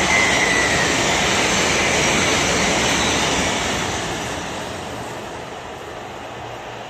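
Train passing on the tracks: a loud, steady rush of wheels on rail, with a faint high squeal in the first second, fading away over the second half as the train moves off.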